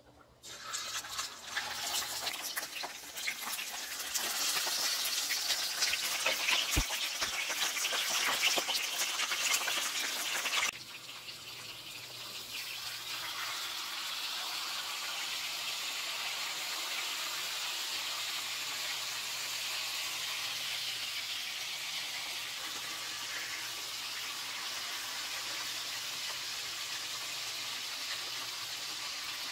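Snapper pieces sizzling and crackling as they fry in hot oil in a frying pan, turned down low to fry slowly. The sizzle is louder and more crackly for the first ten seconds or so, then drops suddenly to a softer, steady sizzle.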